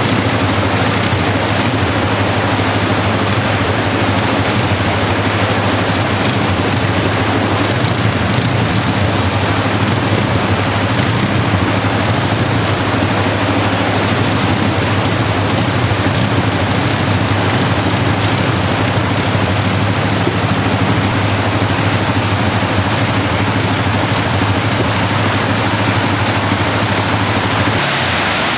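ATV engine running steadily as it climbs through a rocky stream, over the loud rush of whitewater. Near the end the engine hum drops away, leaving the rushing water.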